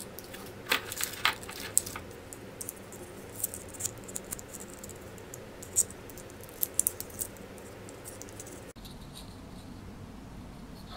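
Hands handling surprise-egg wrappers and small plastic toy pieces: scattered short crinkles and clicks, which stop abruptly near the end, leaving only faint room noise.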